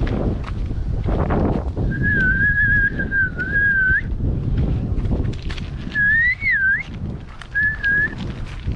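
A person whistling a few wavering notes: one long held note, then a short rising-and-falling phrase and a brief note near the end, over wind buffeting the microphone and footsteps.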